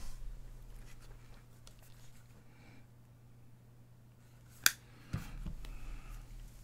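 Trading cards and packs being handled on a table: quiet shuffling, one sharp click about two-thirds of the way in, then a soft thump, over a faint steady electrical hum.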